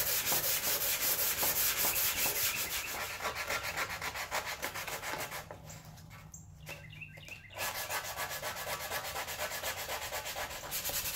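Sheet-metal cab mount panel being scuffed by hand in quick back-and-forth strokes, roughing the surface so epoxy primer can get a mechanical bond where the etch primer peeled off. The rubbing pauses for about two seconds in the middle, then starts again.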